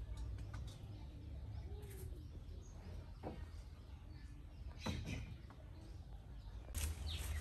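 Faint outdoor ambience: birds chirping over a low steady rumble, with a few soft clicks.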